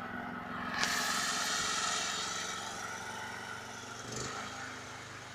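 Engine of a homemade articulated karakat all-terrain vehicle running; it gets suddenly louder with a sharp onset about a second in, then slowly fades, with a brief bump near the end.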